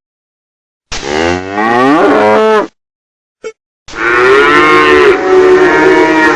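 Cow mooing twice: a call of nearly two seconds that falls in pitch, then a longer, steadier one.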